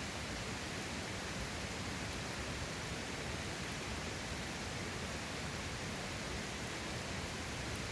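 Steady, even rushing of a mountain valley stream, unchanging throughout.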